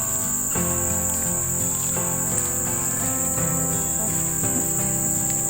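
A steady, high-pitched insect drone over background music with held notes that change every second or so.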